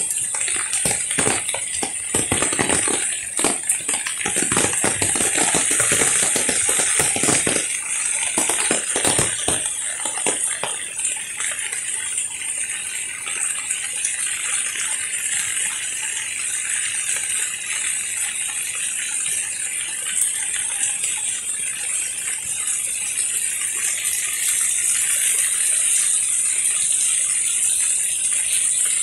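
Heavy rain falling on foliage and wet paving: a steady hiss, with dense close patter of drops for about the first ten seconds that then settles into an even downpour.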